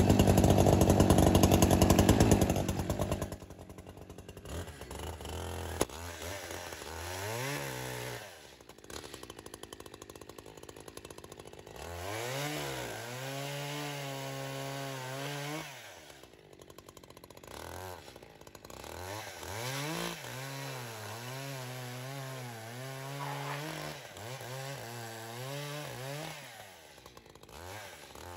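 Echo CS-620P two-stroke chainsaw running loud and close for the first couple of seconds. It then sounds farther off, revved up and let back to idle over and over as it cuts through slabs of wood.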